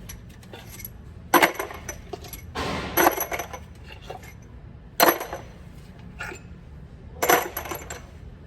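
Metal objects clinking and clattering, as with hand tools and metal parts handled during engine work. There are sharp ringing strikes about one and a half, five and seven seconds in, and a longer rattle around three seconds in.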